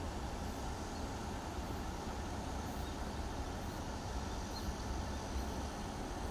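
Steady low rumble from a motor vehicle, even throughout with no distinct events.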